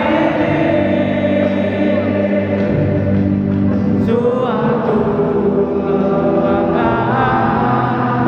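Many voices singing a song together in chorus, with long held notes and a few sliding phrases.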